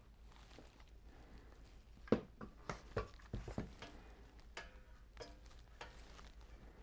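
A run of light knocks and clicks of tool parts being handled on a workbench, the loudest about two seconds in and several more over the next two seconds, then a few softer ones. A low steady hum lies underneath.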